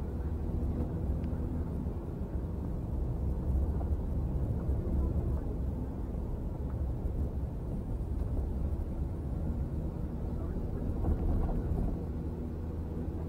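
Car engine and tyre noise heard from inside the cabin while driving: a steady low rumble with a faint engine hum, swelling slightly now and then.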